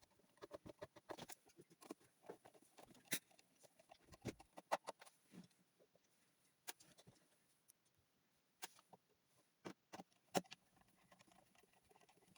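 Irregular light clicks and taps, many small ones with a few sharper knocks, such as small objects or keys being handled.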